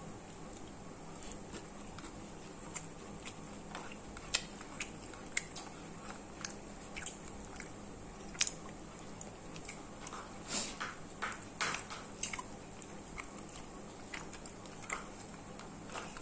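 A person chewing and eating close to the microphone: irregular short wet clicks and smacks, busiest about ten to twelve seconds in, over a faint steady hum.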